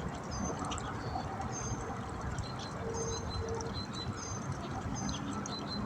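Small birds chirping, short high notes repeated about twice a second, over a steady low outdoor background hiss.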